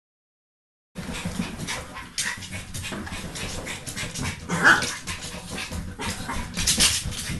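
A Norfolk terrier scrabbling at an inflatable balance ball, its claws scratching on the ball and clicking on the wooden floor, with a louder short sharp sound about four and a half seconds in. The first second is silent.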